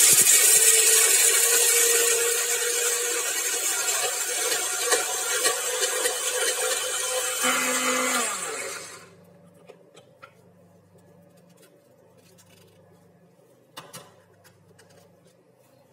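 Small electric blender grinding fried peanuts, chillies and garlic dry, with no water added, running for about nine seconds, then slowing and winding down to a stop. A light knock follows near the end.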